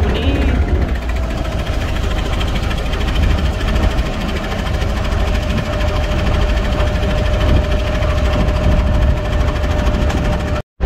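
Vehicle engine running steadily, with a low rumble and a steady mid-pitched whine; the sound cuts out for a moment near the end.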